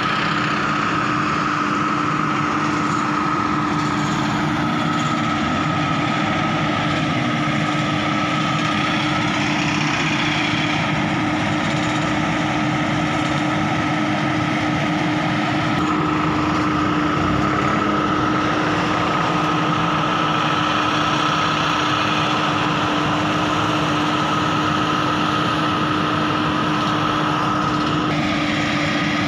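Tractor and towed coffee harvester running steadily: a continuous engine and machinery drone with a constant low hum and a higher whine.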